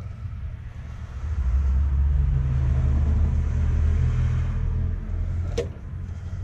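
Low engine rumble of a passing road vehicle, growing louder about a second and a half in and easing off near the end. A single sharp click sounds near the end.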